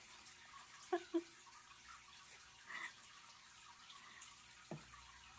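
Faint small water splashes and drips from pet turtles moving and snapping at floating food pellets in shallow water, with a couple of short sharper sounds about a second in.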